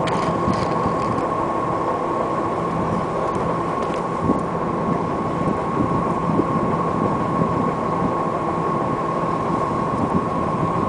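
Caterpillar wheel tractor scraper's diesel engine idling steadily, with a constant high whine over the low running.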